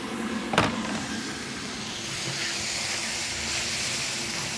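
Creamy sauce sizzling in a hot wok with cherry tomatoes, a steady hiss that grows brighter from about two seconds in. A single sharp knock about half a second in, and a wooden spatula stirring through the sauce near the end.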